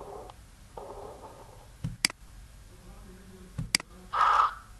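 Computer mouse clicking, two sharp clicks about a second and a half apart, each with a soft low thump just before it, over faint room noise. Near the end there is a brief, louder rush of noise.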